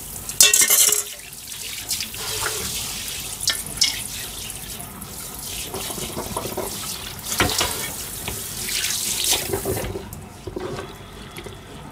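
Kitchen tap running into a stainless steel sink as dishes and a bowl of food scraps are rinsed, partly with a pull-out spray head, with scattered clinks and knocks of dishware. The water stops about ten seconds in.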